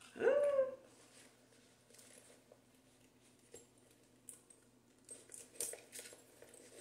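A handbag being handled and opened: faint rustling and small clicks of its hardware, with a cluster of sharper clicks about five seconds in. A brief vocal sound comes right at the start.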